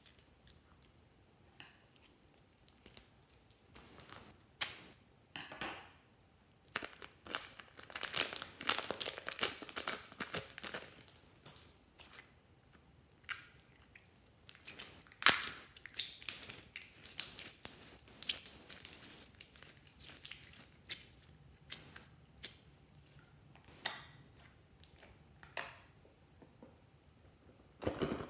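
Thin plastic piping bag crinkling and crackling in the hands as it is opened and squeezed, with slime worked about inside it. The crinkling comes in irregular clusters, busiest about a third of the way in and again just past the middle.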